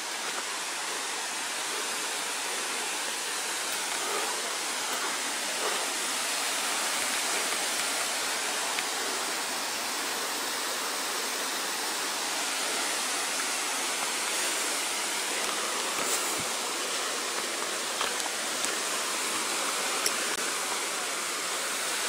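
Waterfall's water rushing steadily: an even, unbroken hiss with little deep rumble.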